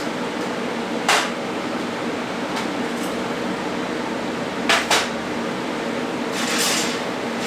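Steady fan-like hum in a welding shop, broken by light metal clinks and knocks, one about a second in and a quick double near the middle, and a short hiss near the end.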